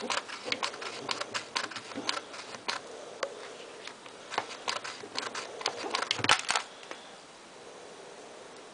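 Irregular light clicks and taps of lace being bunched up and pressed onto a chicken-wire heart, the wire rattling under the hands; the handling stops about two-thirds of the way through.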